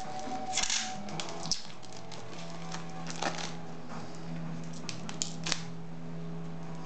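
Plastic shrink-wrap crinkling as it is peeled off a CD mediabook, with a handful of sharp crackles, the loudest about half a second in and about five and a half seconds in. Quiet background music with held tones plays underneath.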